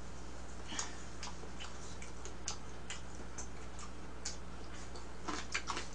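Eating with chopsticks: scattered light clicks and taps of wooden chopsticks against a plastic food container, bunching into a quick run near the end.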